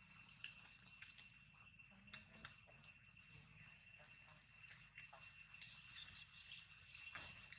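Faint, steady high-pitched drone of insects calling in the background, with a few light clicks and rustles, two of them a little louder about half a second and a second in.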